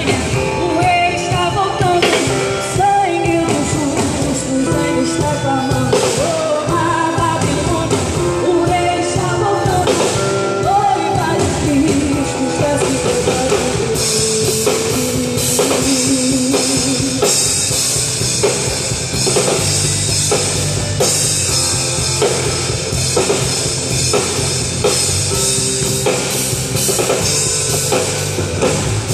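Live worship band playing a rock-style song on drum kit, guitar and bass. A melody line bends in pitch over the first half, and from about halfway a fuller passage follows with steady bass and regular drum hits.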